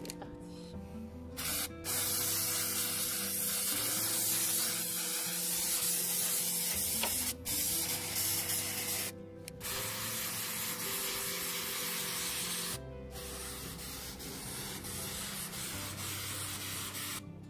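Aerosol spray paint can hissing in long bursts as white paint is sprayed onto a wooden plank. It starts about a second and a half in and is broken by a few short pauses.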